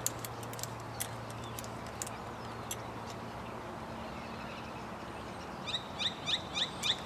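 Light metallic clicks of an Allen key working the clamp bolt of a bar-end mirror on a motorcycle handlebar. Near the end a bird chirps in a quick repeated series, about four high chirps a second, louder than the clicks.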